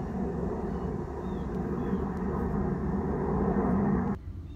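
Fixed-wing airplane passing overhead: a steady, broad rumble that swells slightly and then cuts off suddenly near the end.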